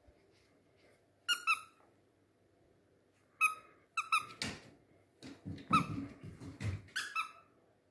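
Squeaker in a plush dog toy squeezed again and again, short high squeaks, several in quick pairs. Softer thumps and scuffles come between them in the second half.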